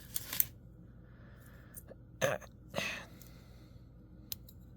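A person's throat-clearing sounds, two short ones about two seconds in, over a faint steady low hum.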